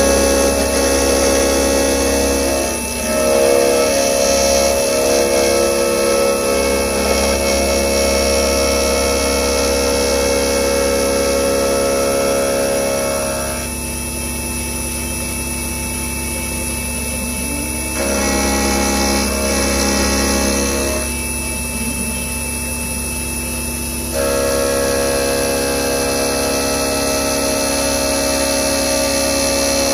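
CNC milling machine's end mill cutting a connecting rod under flood coolant, a steady spindle-and-cutting whine. The tone drops and quietens about 14 seconds in, comes back around 18 seconds, and drops again briefly between about 21 and 24 seconds as the cutter moves along the contour. Near the end it is running the 2D contour finishing pass.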